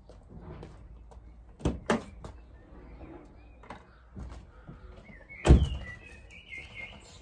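Two sharp clicks, then the Ford Mondeo's driver's door slammed shut about five and a half seconds in, the loudest sound; birds chirp just after.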